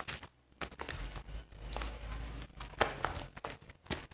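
Sticky homemade slime being kneaded and pulled by hand, giving irregular crinkly, tearing sounds with brief pauses.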